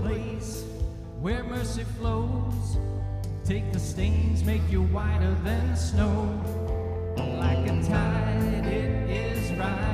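Live contemporary worship band playing a song, with a man's lead vocal over electric guitar, keyboards, bass and drums keeping a steady beat.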